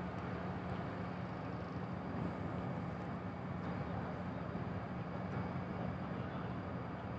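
Steady low machinery hum from the moored passenger ship KM Kelud, its engines running ahead of departure.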